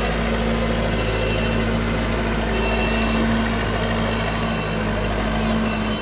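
Escorts Digmax-II backhoe loader's diesel engine running steadily under load while the machine moves in reverse, its reversing alarm beeping about once every second and a half.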